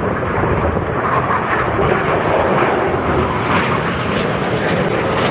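Several formation display jets flying past, their engines a steady, loud rushing noise.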